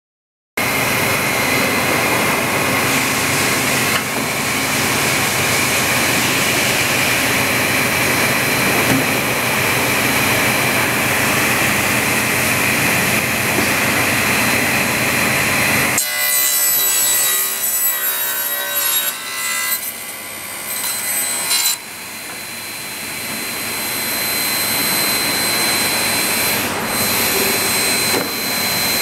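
Sliding table saw of a combination woodworking machine cutting through a plywood panel: a loud, steady sawing noise. About halfway through the sound changes abruptly to a thinner whine with ringing tones, then builds up again toward the end.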